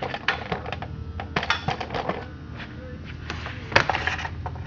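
Irregular clicks and clatter of a chainsaw being handled, with one sharper knock near the end.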